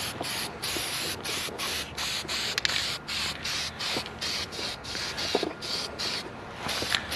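Aerosol spray-paint can hissing in short bursts, about three a second, as paint is sprayed onto a steel frame.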